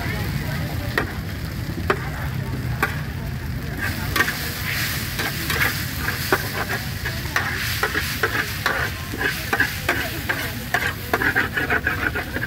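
Food sizzling in a hot pan while a metal spatula or ladle scrapes and taps against it. The clicks are scattered at first and come thick and fast from about halfway through, over a steady low hum.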